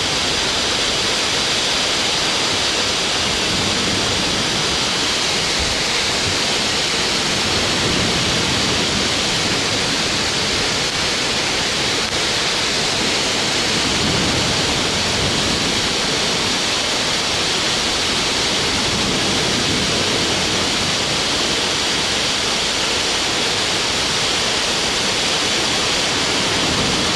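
Steady, loud rushing noise of rough, choppy sea and wind, with no distinct events.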